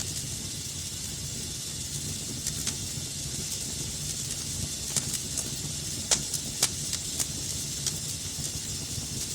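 Wood fire burning in a fireplace: a steady hiss and low rumble with scattered sharp crackles and pops, the loudest a little past halfway.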